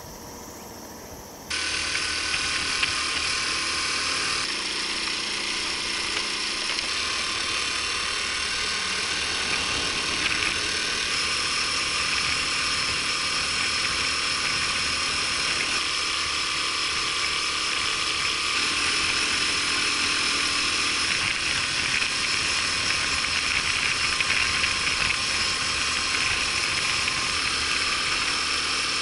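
Honda Super Cub 50's small air-cooled single-cylinder four-stroke engine running steadily while riding, a continuous mechanical buzz mixed with road and wind noise, picked up by a camera mounted on the bike. It comes in suddenly about a second and a half in, after a quieter stretch.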